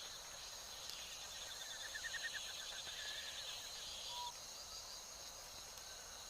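Faint forest ambience: a steady high insect drone, with a pulsing insect chirr that cuts off about four seconds in and a bird giving a quick trill of notes around two seconds in.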